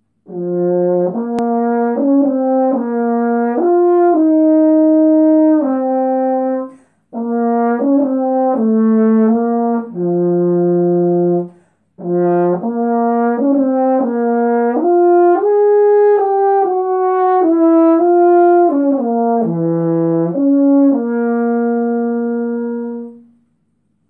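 Solo French horn playing an unaccompanied melody of changing notes in three phrases, with short breaks after about seven and twelve seconds; the last note is held for a couple of seconds before stopping.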